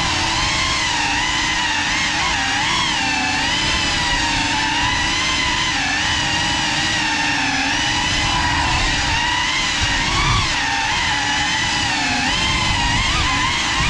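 GEPRC CineLog 35 cinewhoop drone's motors and propellers whining steadily, the pitch wavering up and down as the throttle changes, heard up close from the drone's own camera.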